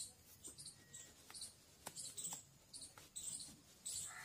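Faint, high-pitched squeaky chirps from a small animal, repeating irregularly a few times a second, with a few soft clicks between them.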